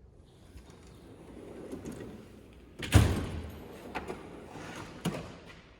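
Steel tool box drawer rolling along its slides, then banging to a stop with a loud metal knock about three seconds in, followed by two light clicks.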